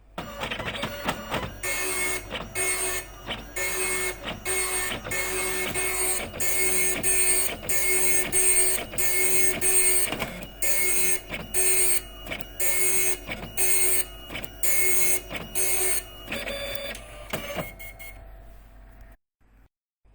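Epson dot matrix printer printing: loud rasping passes of the print head about once a second, with short gaps between lines. It eases off after about three-quarters of the way, pauses briefly just before the end, then starts again.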